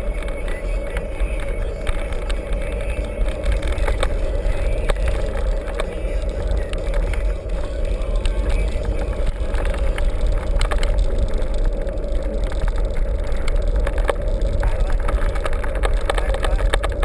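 Mountain bike being ridden over rough ground: a steady wind rumble on the microphone, with frequent rattles and knocks from the bike.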